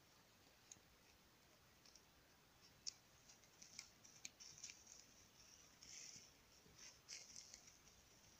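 Faint clicks, snaps and rustles of dry twigs and leaf litter as a puppy noses and mouths at the forest floor. They are sparse at first and come thicker from about three seconds in.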